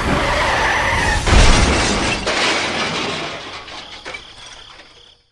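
A loud crash, like something breaking or shattering, that peaks about a second in and then dies away over a few seconds.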